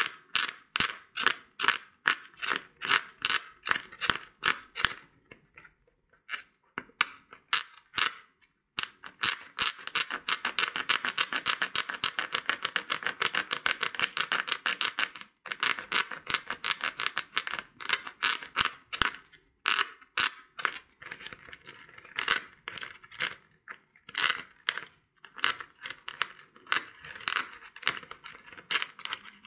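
Long fingernails scratching hard over the cover and split seam of a mini soccer ball: short, dry scrapes a few a second, speeding into a fast, dense run in the middle before slowing again.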